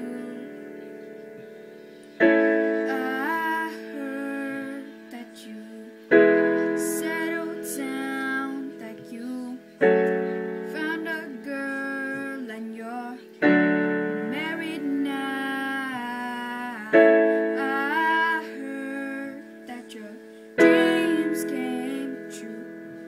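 Piano chords struck about every four seconds and left to ring, with a girl singing a pop melody over them.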